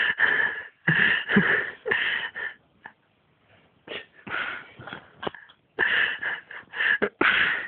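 A person's breathy, wheezing sounds in short irregular bursts with brief pauses between them.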